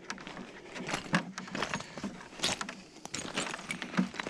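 Footsteps crunching on loose broken rock, an uneven step every half second or so, with stones knocking together underfoot.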